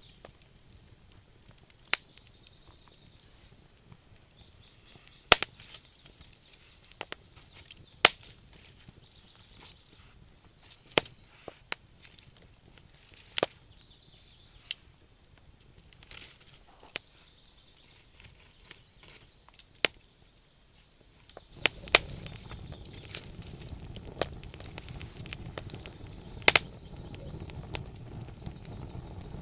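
Wood fire burning in a fireplace, crackling with sharp pops every second or two. About two-thirds of the way in, a louder steady low rushing noise comes in beneath the pops.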